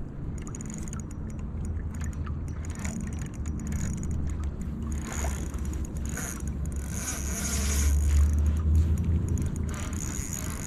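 Steady low rumble of moving river water and wind on the microphone, with a hissy wash swelling about halfway through and again a little later.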